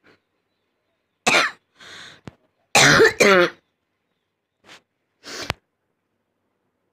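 A person coughing several times in short, rough bursts. A loud cough comes about a second in, and two loud coughs come back to back about three seconds in, with softer coughs and throat sounds between and after them.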